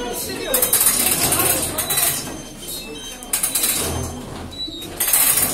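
Metal office turnstiles clicking and rattling in short bursts as several people push through one after another, with background chatter.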